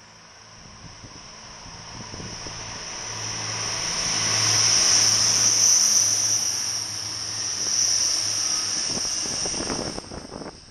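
Diesel passenger multiple unit passing at speed: a steady engine hum and rushing wheel noise swell to a peak about halfway through, with a high-pitched whine above. A few knocks come near the end as the sound falls away.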